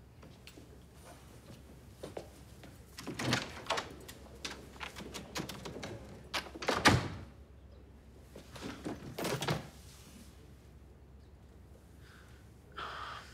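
Scattered knocks and thuds of things being handled and moved in a small room, in three clusters about three, seven and nine seconds in, the loudest near seven seconds. A short higher-pitched sound comes near the end.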